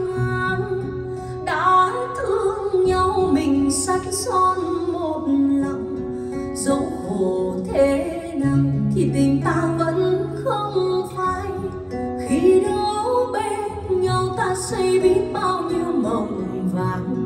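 A song playing: a woman singing over acoustic guitar, streamed from a phone over Bluetooth LDAC and played back through an SMSL DO100 DAC.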